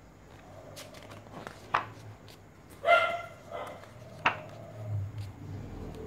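A dog gives one short, high bark about halfway through. A few sharp clicks come before and after it.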